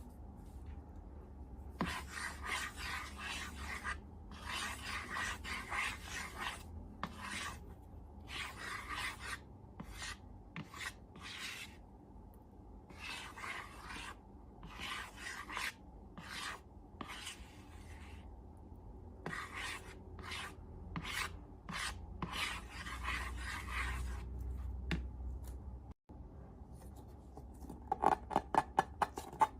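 Repeated rasping rubbing strokes, each under a second long, with short pauses between them, then a run of quick sharp clicks near the end.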